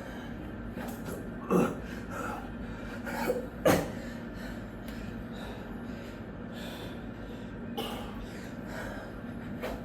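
A man breathing hard from the exertion of burpees, with a few sharp, noisy gasps and exhalations about every couple of seconds, over a faint steady hum.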